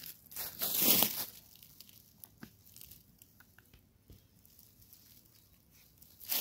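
Rotten, punky wood of a log crunching and crumbling as it is gripped and handled, one loud rough crunch about a second in, then only faint clicks and handling noise until another crunch starts right at the end.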